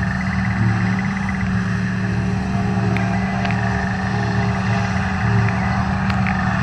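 John Deere 7750i self-propelled forage harvester running steadily while chopping grass silage from the swath, with a tractor pulling a silage trailer alongside: a continuous low engine and machinery drone.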